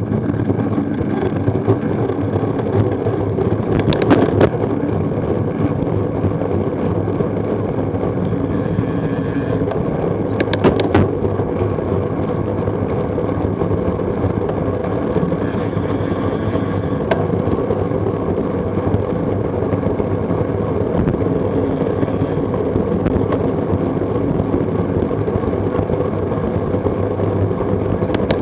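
Steady wind rush and road rumble on a bicycle-mounted action camera's microphone while riding, with two short sharp clacks about four seconds in and again about eleven seconds in.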